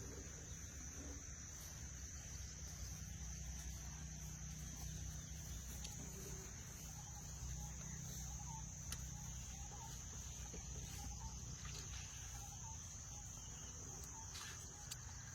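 Insects chirring steadily in one high, even pitch over a low, continuous rumble, with a few faint short chirps here and there.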